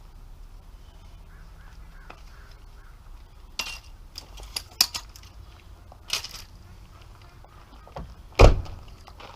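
A few sharp clinks and knocks of things being handled, over a low steady rumble, with one heavy deep thump near the end.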